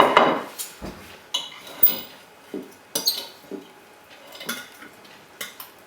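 Cutlery clinking and scraping against plates as people eat, in irregular short knocks, the loudest right at the start.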